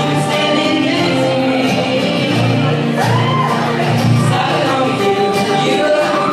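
A live song: singing over a strummed acoustic guitar, with several voices singing together.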